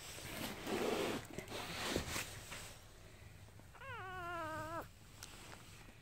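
A newborn Jindo puppy gives one thin whining cry about a second long. It starts high, slides down, then holds with a slight waver. Before it there is rustling close to the microphone.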